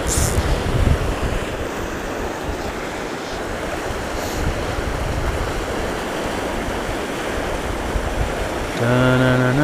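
The high, fast Pecos River rushing past as a steady wash of water, with wind buffeting the microphone in the first second. Near the end a low, steady hummed tone starts.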